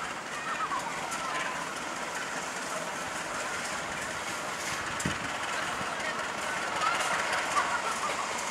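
KAI CC 203 diesel-electric locomotive running past on a curved track, with a sharp wheel click on the rails about halfway through. Voices chatter faintly in the background.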